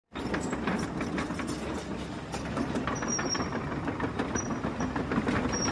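Radio-controlled excavator and dump truck models working: a steady mechanical running sound with dense, rapid clicking and rattling.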